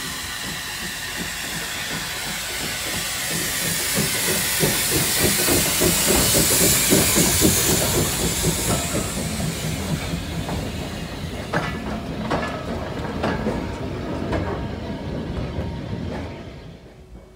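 Small saddle-tank steam locomotive pulling away and passing close: steam hiss with a fast run of exhaust beats that peaks midway. Then the carriage wheels click over the rail joints, and the sound fades as the train moves off.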